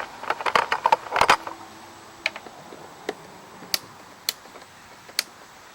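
Clicks and clatter of a tool and small hard parts being handled while a screw on a backpack blower's throttle lever assembly is tightened: a dense run of clicks in the first second and a half, then single sharp clicks roughly every half second to second.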